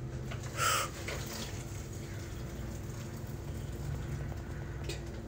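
Hot water poured from a bowl into a foil pouch of freeze-dried chicken and rice meal, a steady filling wash with a short louder burst a little under a second in.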